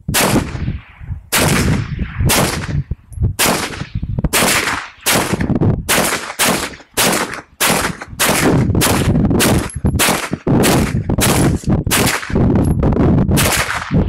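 Semi-automatic gunfire from a Draco NAK9 9mm AK-pattern pistol: about two dozen single shots in a steady string, roughly two a second, each followed by a short echo.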